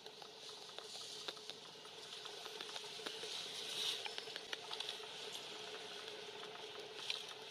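Scattered small crackles of dry leaf litter stirred by monkeys moving on the forest floor, over a steady, faint background hiss.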